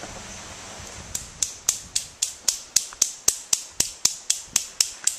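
A fast, even series of sharp clicks, about four a second, starting about a second in, over faint background noise.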